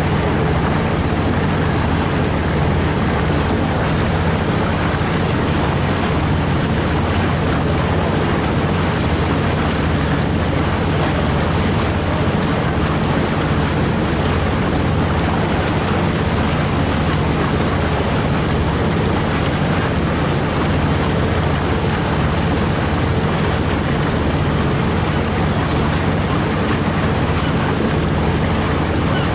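A boat's engine droning steadily under way, with a continuous rush of water and wind.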